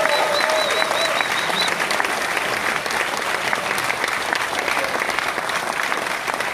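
Concert audience applauding, a dense steady clapping, with a held tone sounding over it for the first second and a half.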